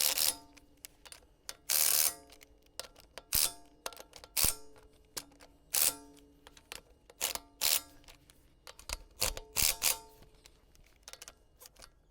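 Metal tools and steel parts clinking and knocking against each other at an uneven pace, many hits with a short metallic ring, during hand assembly of a 4x4 front hub.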